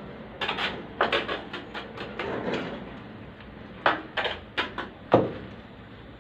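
Metal trowel scraping tile adhesive in and out of a bucket in quick strokes, in two runs, ending with a sharp knock about five seconds in.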